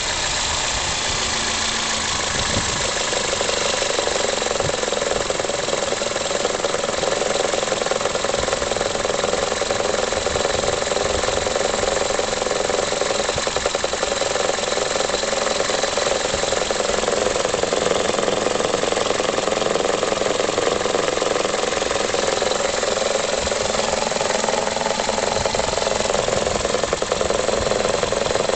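Toyota Corolla E12's 1.6-litre 3ZZ-FE VVT-i inline-four idling steadily but rough. The owner does not know the cause.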